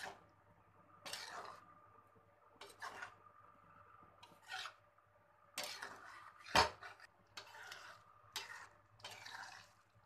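Spatula stirring a thin, watery curry gravy in a nonstick pan: a series of short wet swishes and scrapes, about one a second, with one sharp knock of the spatula against the pan about six and a half seconds in.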